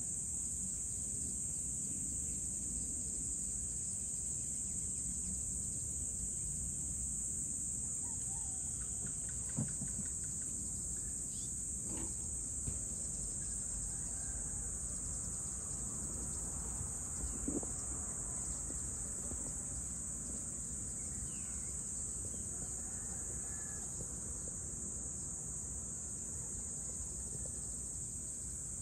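Steady high-pitched chorus of insects over a low rumble of distant ambient noise. A few brief knocks or clicks stand out around ten, twelve and eighteen seconds in, with faint bird chirps now and then.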